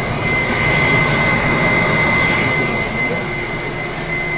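Yamamoto Korea DO-160FLK electric dryer running, its fan blowing air in a steady rush with a high, steady whine over it.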